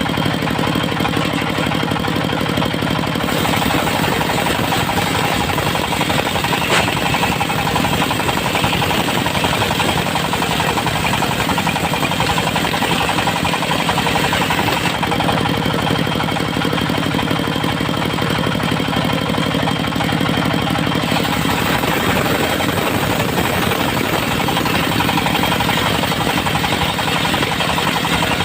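Diesel engine of a circular-saw mill running steadily with a fast knocking beat. A higher rasping hiss of the saw blade cutting teak joins about three seconds in, drops away for several seconds past the middle, then returns.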